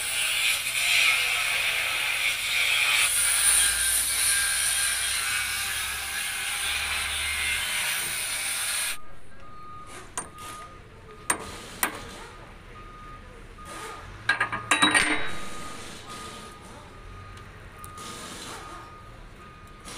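A steady hiss for about nine seconds, then, after an abrupt change, a few sharp metal clicks and knocks of hand tools on a boom truck's hydraulic cylinder fittings and mounting pin, the loudest cluster near the end.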